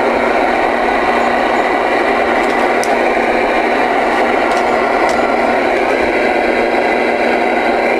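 Radio static hissing steadily through a radio speaker, with a few faint clicks.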